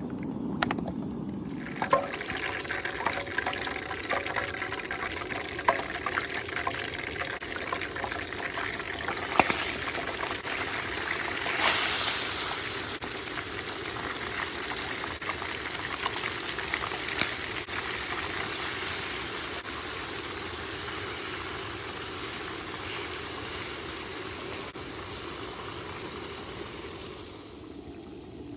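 Battered pike fillets, onions and mushrooms deep-frying in hot oil: a steady sizzle with scattered pops and crackles, starting about two seconds in and dropping away near the end.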